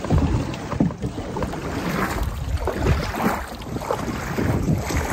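Many paddles stroking and splashing through the water alongside a large wooden canoe, with uneven swells of water noise and some wind on the microphone.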